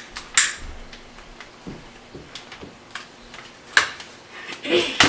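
A long-nosed utility lighter clicking at the mouth of a plastic Ziploc bag: two loud sharp clicks, the first just under half a second in and the second near the end, with softer ticks between them and a brief crinkle of the plastic bag just before the end.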